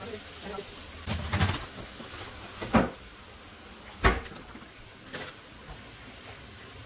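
Kitchen handling noises: a rustle about a second in, then two sharp thumps about a second and a half apart, the second the loudest, and a lighter knock after, like a cupboard or appliance door and items being set down.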